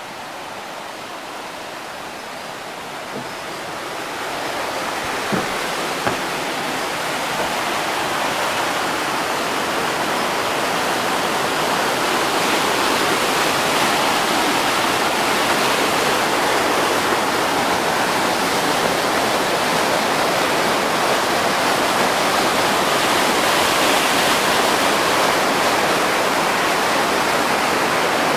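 River rapids: white water rushing and splashing over rocks in a dense, steady noise. It grows louder over the first dozen seconds or so, then holds steady.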